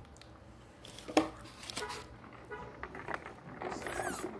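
Handling noises from a plastic cup: a sharp knock about a second in, then sipping through a plastic straw near the end.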